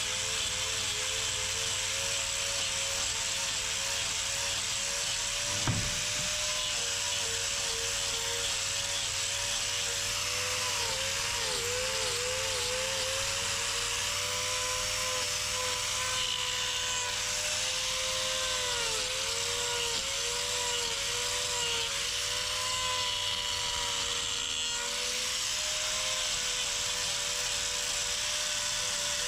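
Electric hoof-trimming grinder running steadily, its pitch dipping several times as the disc is pressed into the cow's hoof to level the sole. One short knock about six seconds in.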